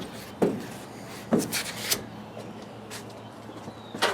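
Body filler (Bondo) being spread on a car hood with a spreader: short scraping strokes, several in the first two seconds and fainter ones after.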